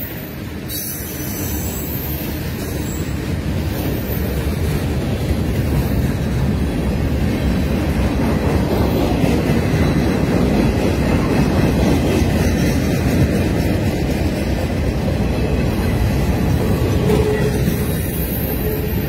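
CSX freight train's cars rolling past close by: a steady rumble of steel wheels on the rails.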